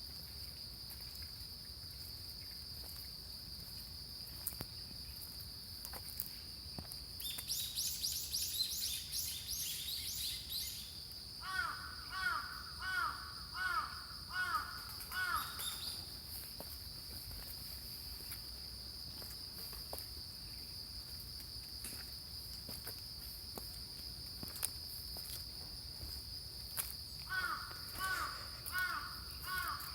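Crows cawing outdoors in two runs of repeated caws, one about a dozen seconds in and another near the end, over a steady high-pitched insect drone. A short burst of chirping from small birds comes just before the first run of caws.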